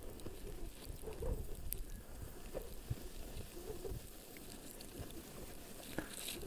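Calves grazing close by: faint, irregular tearing and crunching as they crop dry grass, over a light low rumble of wind.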